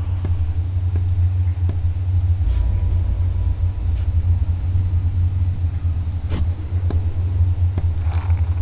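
Dark ambient film-score drone: a deep, steady rumble with scattered sharp clicks and short hissing swells, one about six seconds in and another near the end.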